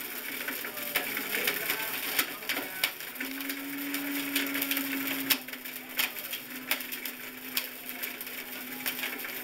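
High-powered countertop blender smashing a tape measure: hard pieces knock and clatter against the jar, with a steady motor hum that comes in about three seconds in and drops slightly in pitch about two seconds later.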